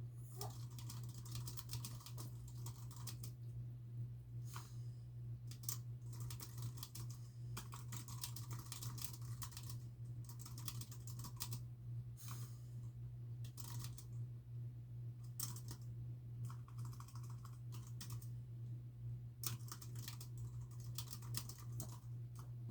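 Typing on a computer keyboard in bursts of a second or two, with short pauses between, over a steady low hum.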